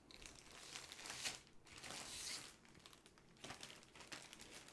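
Faint crinkling and rustling of a thin clear plastic sleeve as a rolled canvas is slid out of it, strongest in two stretches about one and two seconds in, with a few small clicks.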